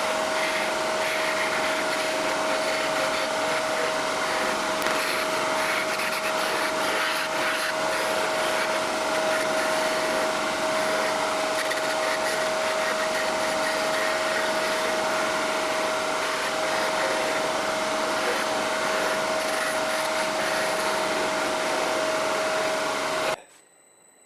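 Woodworking workshop machinery running steadily: an even whooshing noise with a constant mid-pitched hum. It cuts off abruptly near the end.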